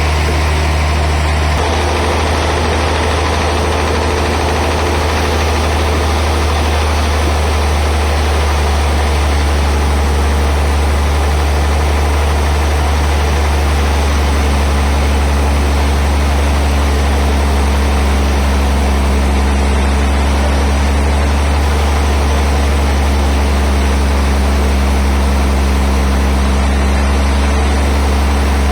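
Large sawmill band saw running with a loud, steady machine drone. The low hum shifts about a second and a half in, and a second, higher hum joins about halfway through.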